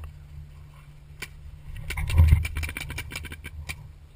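Paintball markers firing: a single pop about a second in, then a rapid string of shots, several a second, for a couple of seconds. Under it, a low rumble of wind and handling on the marker-mounted camera, with a thump about two seconds in.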